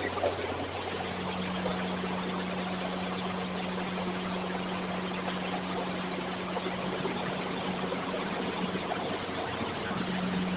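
Steady room tone: a low, constant hum under an even hiss, with no distinct events.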